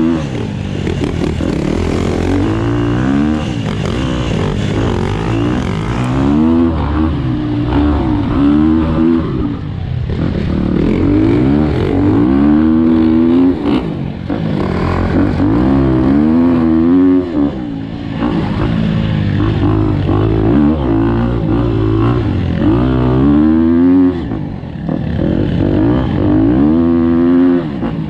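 Dirt bike engine heard from on board while riding a dirt trail, its note repeatedly climbing as it revs up and dropping back, about every couple of seconds.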